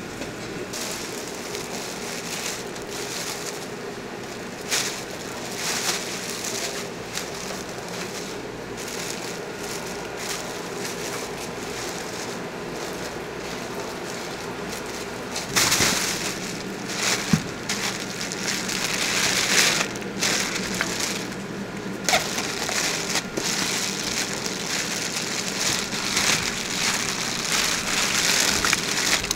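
Plastic wrap and a plastic bag crinkling and rustling as they are handled, in many short bursts from about halfway on, over a steady background hum.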